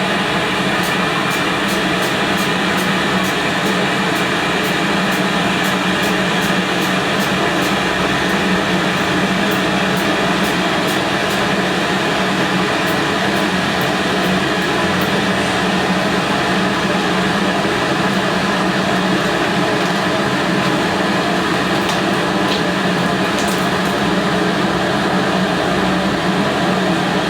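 A loud, steady mechanical whir with a constant hum, unchanging throughout, with faint quick ticks about twice a second in the first half.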